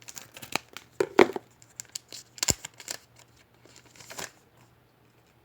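Trading cards and their pack wrapper being handled and flipped through by hand: a string of irregular clicks, slides and rustles of card stock and wrapper, with two sharper snaps about a second and two and a half seconds in.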